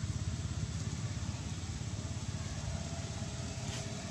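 An engine running with a low, rapid pulsing rumble that eases off slightly.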